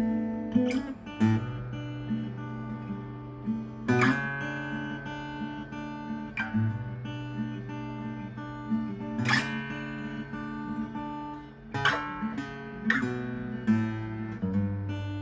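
Acoustic guitar music: chords strummed and left to ring, with a fresh strum every second or two.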